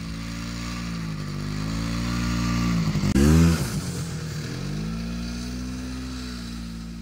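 Snowmobile engine running as the machine moves off across the snow, its pitch rising and falling with the throttle, with a brief louder rev a little past the middle.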